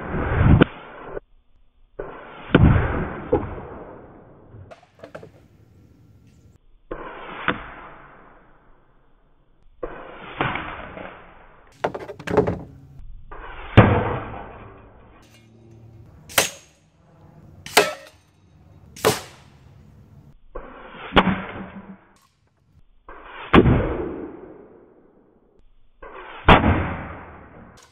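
A string of about a dozen pre-charged pneumatic air rifle shots, one every two to three seconds, each with the smack and clang of a pellet striking a steel reactive target.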